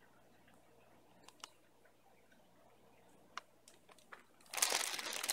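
Plastic fish-shipping bags being handled: a few faint clicks and rustles, then from about four and a half seconds in a loud, continuous crinkling of the plastic bag.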